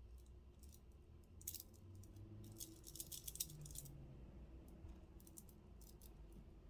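Stone beads of a crystal bracelet clicking and rattling against each other as it is handled, in three short clusters of faint clicks.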